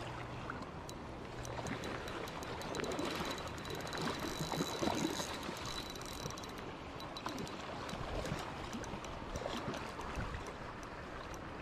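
River water splashing and sloshing as a hooked Atlantic salmon struggles near the surface, loudest about three to five seconds in.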